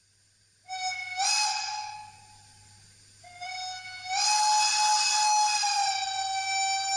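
Sound decoder in a Fleischmann N-scale BR 80 model locomotive playing a steam whistle through its small speaker: a shorter blast about a second in, then a longer one from about three seconds in. Each blast steps up slightly in pitch just after it starts.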